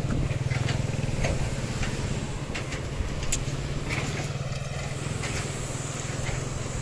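Footsteps crunching over loose volcanic lahar gravel and stones, with a steady low rumble underneath that cuts off near the end.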